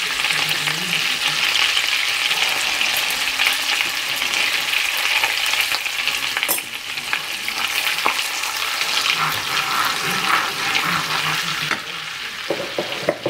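Butter and chilli flakes frying in a nonstick pan: a steady sizzle full of fine crackles as the butter melts and foams.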